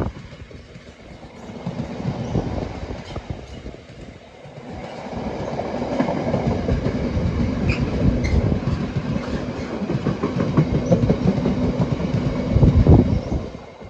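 Freight train container flat wagons rolling past, wheels clattering and knocking over the rail joints in a continuous rattling rumble. It gets louder in the second half as mostly empty flats go by.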